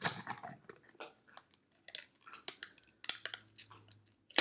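Crisp crackling and clicking of paper and thin plastic being picked and peeled off a small plastic toy toilet, a quick run of short snaps with the sharpest one at the end.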